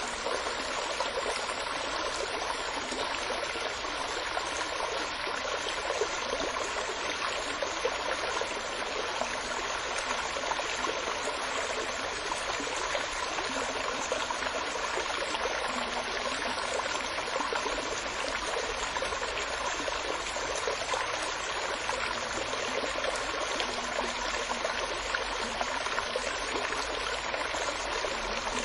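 Steady running water of a flowing stream, an even, unbroken babble.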